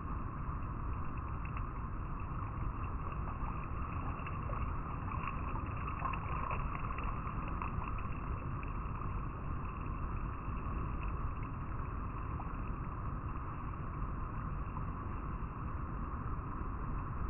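River water flowing and rippling over rocks: a steady, unbroken rush, with a few light splashy ticks about five to seven seconds in.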